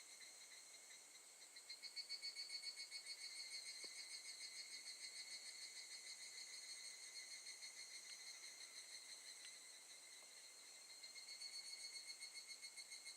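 Higurashi (evening cicadas, Tanna japonensis) calling, a fast-pulsing high-pitched trill. It swells louder about two seconds in and again near the end.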